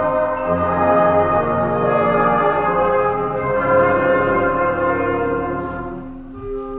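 School concert band playing held, slow-moving chords, with trumpets among the brass and a few short high ringing notes on top. The sound fades near the end, and a quieter new chord enters.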